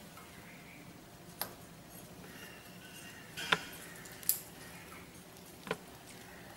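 Four light, sharp clicks or taps, a second or two apart, over quiet room tone, the sound of small objects being handled.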